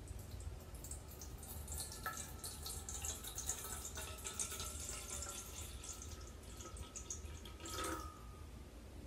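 A thin stream of water poured from a plastic measuring jug, trickling and splashing into a metal bowl, with a faint steady tone as the bowl fills and a brief louder splash near the end.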